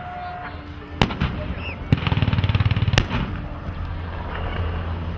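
Air-show pyrotechnic explosions: sharp booms about a second in, at two seconds and at three seconds, over the fast, even beating of a helicopter's rotor, with a steady low drone after the blasts.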